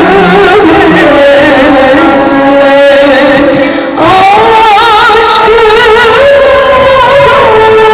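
Turkish classical music ensemble performing a song in makam hüzzam: long held melody notes with vibrato and ornaments, and a brief break in the line about four seconds in.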